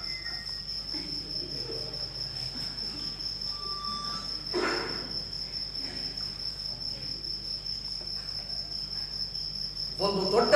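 Crickets chirring in one steady high-pitched drone under a quiet hall, with a brief soft rustle about halfway through.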